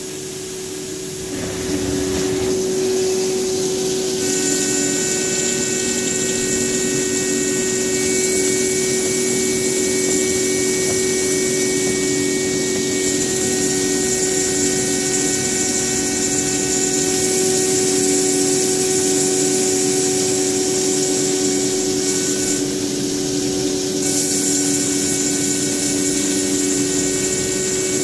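Ceramic chamfering machine's spindle running while its tool grinds the edge of a ceramic plate under a flood of coolant spray: a steady hum and a high hiss of spraying coolant. The sound grows louder about two seconds in, and higher whining tones come and go as the cut goes on.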